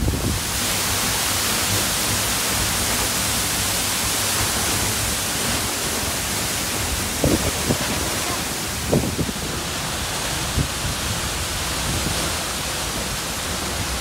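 Steady, heavy rush of a large waterfall heard from close up, its falling water and spray making an even hiss. A few brief low thumps come in around the middle.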